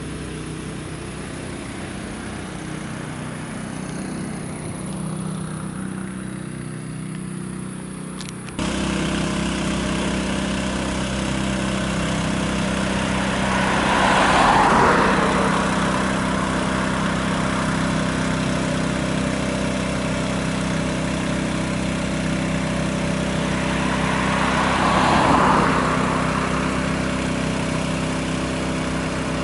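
A water tanker truck's engine running steadily, which jumps louder at a cut about eight seconds in. Two cars pass close by, one about fourteen seconds in and one about twenty-five seconds in, each swelling and fading away.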